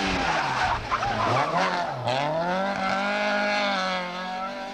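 Ford Escort Mk2 rally car driven hard through a corner, its engine revving with tyre noise from the slide. The engine note drops sharply twice in the first two seconds, then climbs and holds high before fading as the car pulls away.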